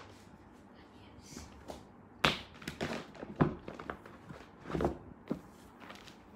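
A thin 1 mm yoga mat being spread out on a tile floor: a series of short slaps, taps and rustles as it is lifted and laid down, starting about two seconds in and loudest then, with another cluster around five seconds.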